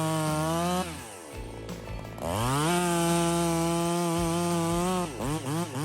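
Husqvarna 359 two-stroke chainsaw with a muffler mod held at full throttle, dropping back to idle about a second in, then revved up again and held for nearly three seconds before quick throttle blips near the end.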